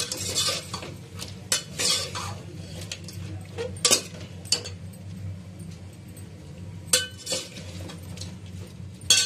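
Perforated metal spatula scraping and clinking against an aluminium pot as chicken and ginger-garlic paste are stirred and fried, with a light sizzle underneath. The scrapes come at irregular moments, the loudest about four seconds in, about seven seconds in and near the end.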